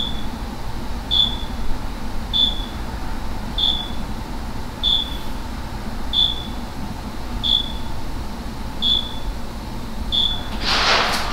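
An electronic beeper chirping: one short, high beep about every second and a quarter, over a steady room hum. Near the end there is a brief louder burst of noise.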